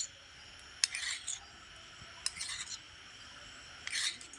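A spoon stirring honey into tulsi leaf juice in a small dish: short scraping strokes about a second apart, with a few sharp clinks against the dish.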